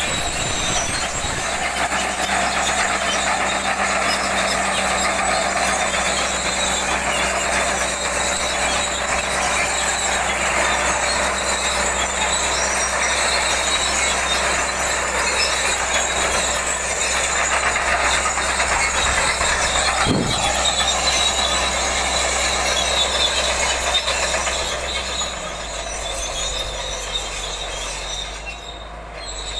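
Caterpillar D8 crawler tractor working under load while pulling a deep plough: steady diesel engine noise with clanking steel tracks and a steady high-pitched squeal. There is one low thump about two-thirds through, and the sound grows quieter over the last few seconds as the machine moves off.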